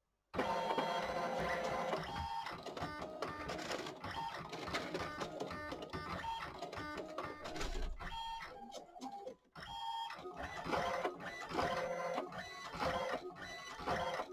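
ALPS MD-5500 thermal-transfer printer running a print pass on a decal sheet: its motors give several steady tones over a fast mechanical clatter. It starts suddenly just after the beginning and breaks off for an instant about nine and a half seconds in.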